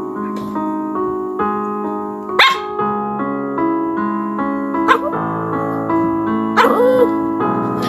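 A small dog barking in about three short, sharp calls, spaced a couple of seconds apart, over steady piano background music.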